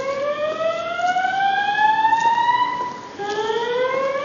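A building fire alarm's evacuation tone sounds a slow rising whoop: a pitched tone climbs steadily for about three and a half seconds, breaks off about three seconds in, and starts climbing again. It is the signal to evacuate the building.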